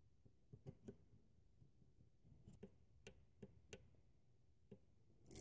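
Faint, scattered plastic clicks and taps, about a dozen spread over several seconds, as a small screwdriver and fingers work the locking tab of a throttle body's electrical connector.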